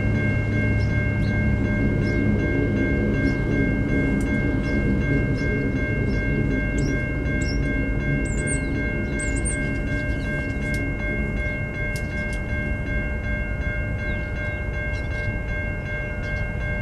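Pacific National NR and AN class diesel-electric locomotives working a train: a steady low rumble with a constant high whine, slowly easing in level. Birds chirp briefly around the middle.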